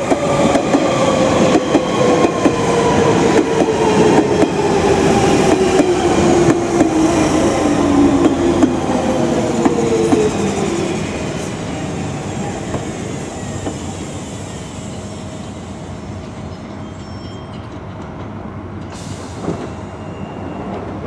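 London Underground Central Line 1992 Stock train running past along the platform, its traction-motor whine falling steadily in pitch over wheels clicking on the rails. The whine dies away about ten seconds in, leaving a quieter rumble.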